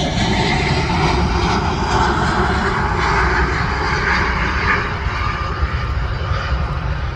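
Airliner passing, its engines a loud, steady rush over a deep rumble, easing off slightly near the end.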